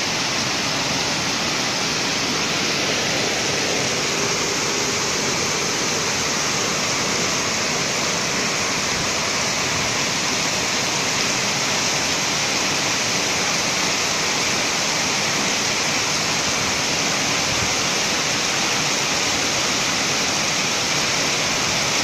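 Torrential rain pouring down in a steady, dense hiss that does not let up.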